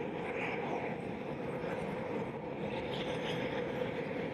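Eurofighter Typhoon's twin EJ200 turbofan engines running steadily at taxi power as the jet rolls past, a constant engine rush with a low steady hum.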